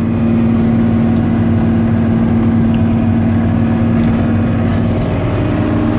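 Combine harvester running steadily while harvesting a swath of wheat: an even engine and machinery drone with a strong, held hum.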